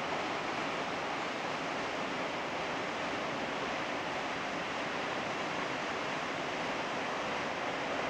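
Shiramizu Falls' plunging water heard as a steady, even rushing.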